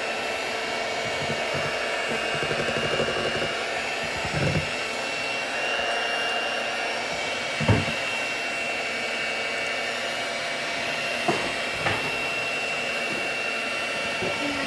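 Electric hand mixer running steadily on its low setting, its beaters whirring through cake batter in a stainless steel bowl, with a few short knocks, the loudest about halfway through.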